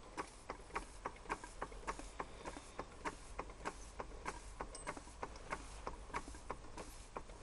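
1902 Bing toy steam engine running steadily as it turns over, making an even, light ticking of about four beats a second.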